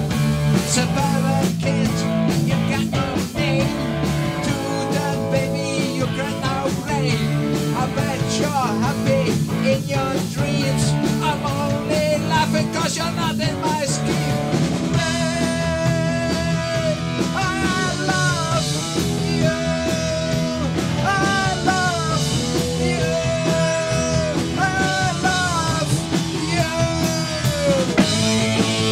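Punk rock band playing at full volume: electric guitar, bass guitar and drum kit, with a male singer.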